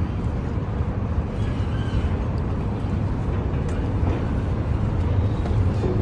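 A docked passenger ferry's engines idling: a steady low rumble.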